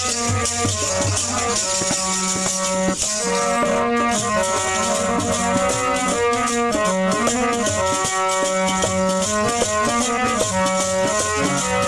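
Instrumental interlude of a sung Sikh hymn (shabad kirtan): a melody of held notes stepping up and down, over a steady jingling rattle.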